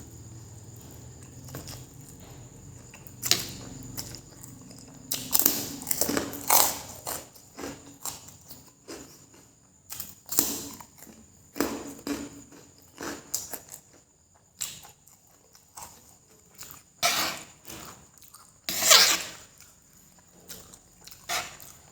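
Close-miked eating sounds: a person chewing and slurping spicy fried noodles in irregular bursts, the loudest about 19 seconds in.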